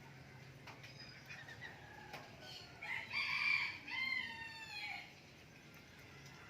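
A rooster crowing once: a call of about two seconds that falls in pitch at the end, with faint chirps of other birds around it.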